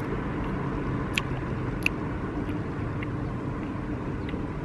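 A dog treat crunching twice as it is bitten and chewed, about a second and two seconds in, over a steady low outdoor rumble.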